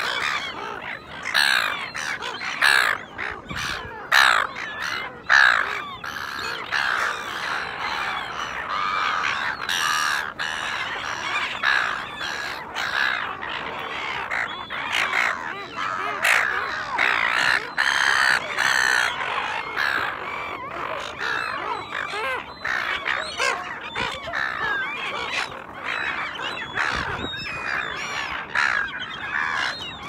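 A flock of silver gulls calling without a break, many harsh squawking calls overlapping one another.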